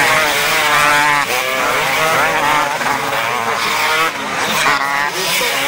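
Several motocross bikes revving hard as they power out of a dirt corner and pass by. Their engine notes overlap, each climbing and dropping again and again through the gear changes.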